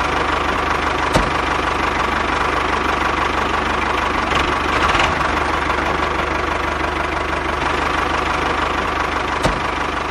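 Tractor engine idling sound, steady with a fast regular knock, played as a sound effect for a hand-pushed toy tractor. Two short clicks stand out, about a second in and near the end.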